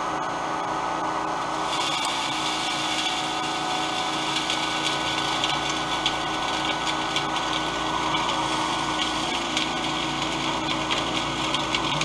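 A professional cotton candy machine running, its motor spinning the head in a steady hum. A brighter hiss joins about two seconds in and carries on to the end.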